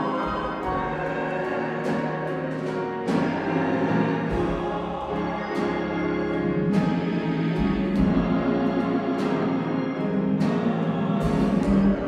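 Church choir singing with organ accompaniment, joined from about three seconds in by percussion strikes recurring roughly every second and a quarter.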